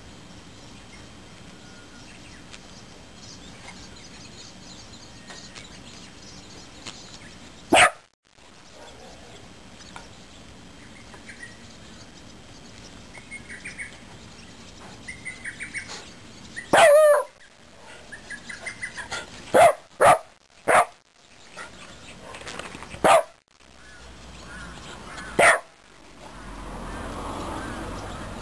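Young Shiba Inu giving sharp single barks at a flower chafer beetle it will not go near: one about eight seconds in, then a run of barks in the second half. Faint bird chirps in the background.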